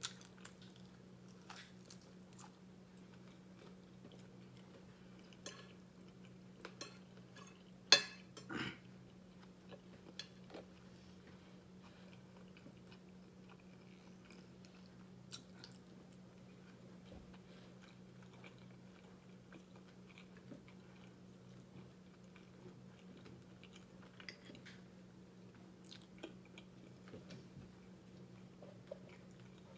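Close-up eating sounds: chewing on fried pork chop and fried cabbage, with small scattered clicks and smacks and a sharper click about eight seconds in, over a steady low hum.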